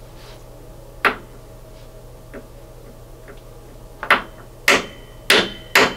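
Footsteps on a hard floor: one step about a second in, then four sharp steps about half a second apart near the end, over a faint steady low hum.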